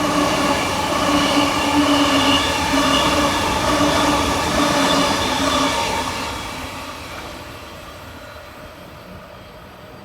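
Sydney Trains Tangara electric train passing the platform, a loud rumble with a steady whine of several tones. It fades away from about six seconds in.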